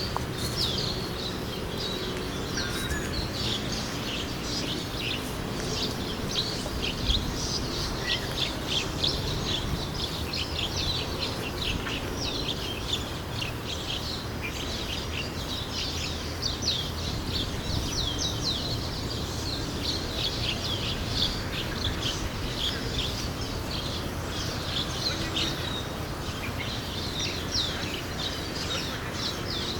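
A flock of birds in a tree chirping continuously, many short high chirps overlapping one another, over a steady low background rumble.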